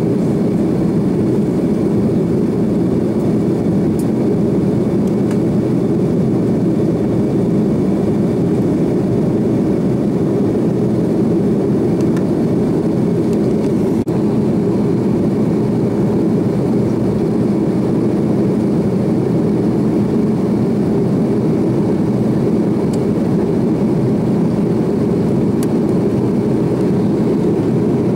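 Steady cabin noise of an Airbus A330-300 airliner in flight: an even, deep roar of jet engines and airflow heard from inside the passenger cabin.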